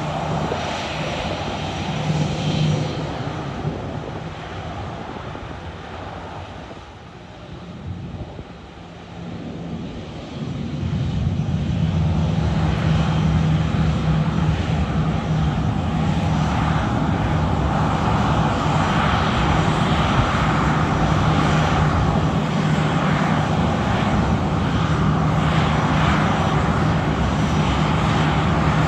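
Boeing 737-800 airliner's CFM56-7B turbofan engines running at low thrust as it turns onto the runway. About ten seconds in they spool up to takeoff power: a steady loud jet roar with a constant low hum.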